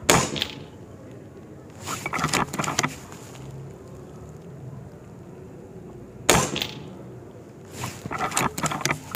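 Two shots from a Reximex Throne Gen2 regulated PCP bullpup air rifle firing .22 pellets, each a sharp crack about six seconds apart. Each shot is followed a second or two later by a short run of clicks as the action is cycled to load the next pellet from the magazine.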